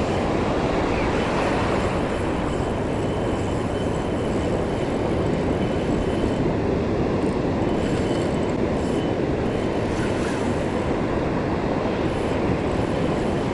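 Strong wind buffeting the microphone, a steady loud rumble mixed with the wash of breaking surf. It drowns out the reel and drag while a fish is being played.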